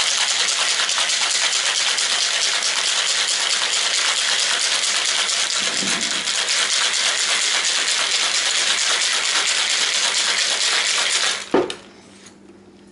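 Ice rattling hard inside a stainless steel cocktail shaker being shaken continuously, stopping suddenly near the end with a single sharp knock.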